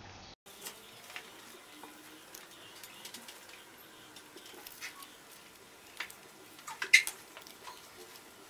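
Paper cut-outs being handled and slid into place on a tabletop: scattered light clicks and taps, the loudest about seven seconds in, over faint steady hiss.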